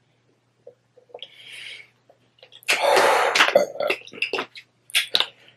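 Thin plastic water bottle crackling in the hand after a drink, loudest about halfway through, then a run of sharp crackles and clicks as its cap is screwed back on.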